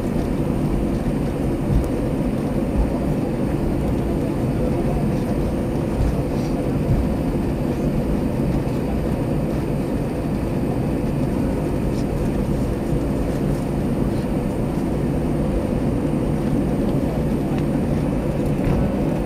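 Steady cabin rumble of an Airbus A321 taxiing after landing, its engines at idle, with a faint steady hum.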